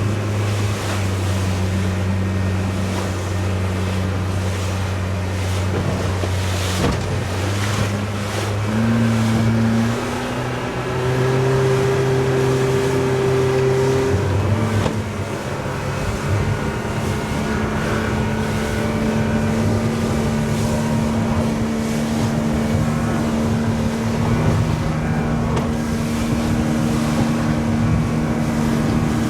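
Motorboat engine running underway, its note stepping up in pitch about nine seconds in and again around fifteen seconds, then holding steady, with wind and rushing water over it.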